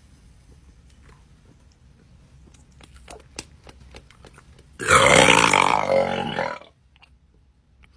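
A person's single loud burp, about two seconds long, coming about five seconds in after a few quiet seconds; a burp brought up by fizzy Sprite.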